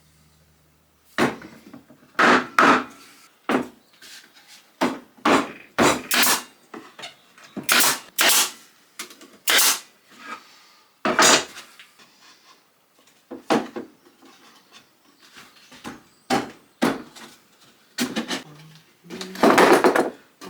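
Wooden beehive super parts being knocked together during assembly: irregular sharp wooden knocks and taps, about one or two a second. A longer, louder clatter comes near the end.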